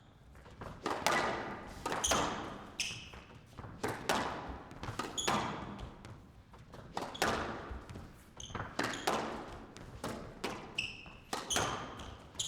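Squash rally: the ball cracks off rackets and walls roughly once a second, each hit echoing around the court, with short high squeaks from players' shoes on the court floor between hits.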